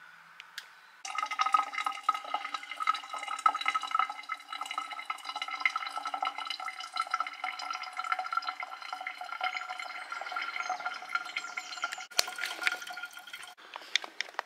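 Water pouring from an electric kettle into a mug, a steady splashing pour that starts about a second in and stops after about eleven seconds, followed by a short clatter.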